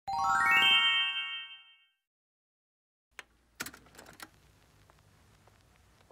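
A short rising chime, a quick run of bell-like notes stepping upward and ringing out, fading away within about two seconds. After a second of silence come a few faint clicks and soft crinkles, typical of hands handling sticker packets in plastic sleeves.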